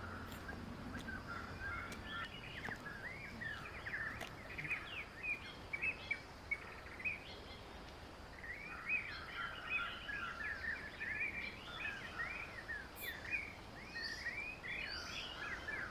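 Small birds chirping and twittering in many quick, high, rising and falling calls, thinning to a lull about halfway through before picking up again, over a steady hiss of background noise.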